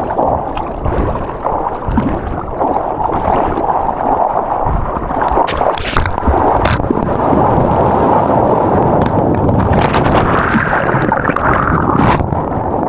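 Ocean water rushing and splashing right at the surfer's camera: a steady, loud wash with a few sharp splashes or knocks scattered through it.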